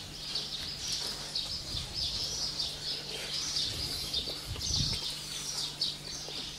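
Small birds chirping, a quick string of short, high chirps, over a faint steady low hum.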